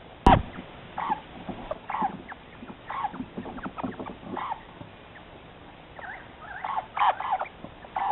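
Birds calling at a bird table: short chirps and squawks every second or so. A sharp knock sounds about a third of a second in.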